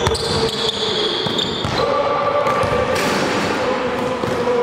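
A basketball thumping a few times on the gym floor, with short sneaker squeaks, echoing in a large gym hall.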